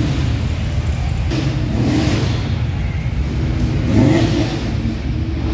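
Car engines rumbling as classic cars drive slowly past, a 1950s sedan and then a Fox-body Ford Mustang convertible; an engine revs up briefly about four seconds in.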